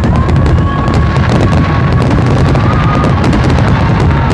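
Fireworks display in full barrage: a continuous low rumble of shell bursts with many sharp crackles from crackling stars.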